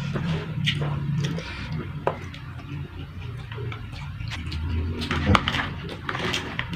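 Close-up eating sounds: chewing, with a few sharp clicks of a utensil against a plate.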